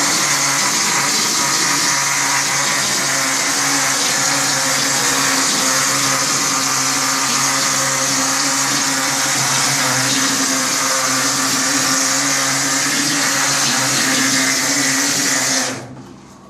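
Plastering machine running steadily, a mechanical hum with a hiss over it, cutting off sharply near the end.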